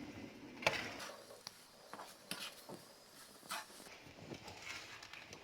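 A few light, separate clicks and scrapes of a spoon against the pan of vermicelli and melting sugar.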